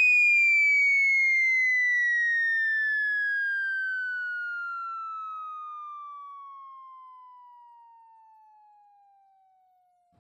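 Falling whistle sound effect: one long whistle tone gliding steadily down in pitch while growing fainter, dying away near the end.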